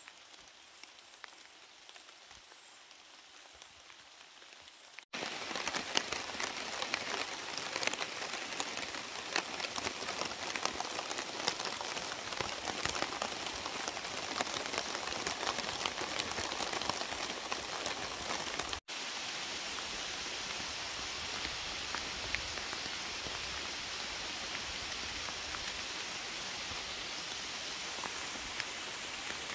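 Rain falling steadily, light and sparse at first, then much heavier and denser from about five seconds in.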